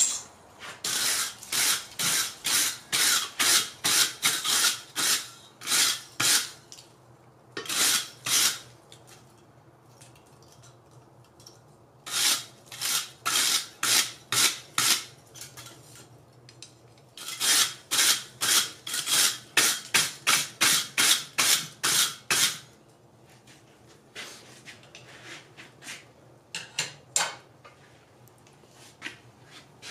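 Stiff wire brush scrubbed back and forth over a glowing-hot steel billet on the anvil, knocking off forge scale: rapid scratchy strokes, about two a second, in several runs with pauses between, and a few lighter strokes near the end.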